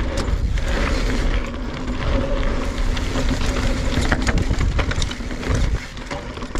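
NS Bikes Synonym mountain bike descending a dirt and rock singletrack at speed: wind rumbling on the microphone, tyres rolling over the trail, and the bike rattling with sharp knocks over bumps and rocks.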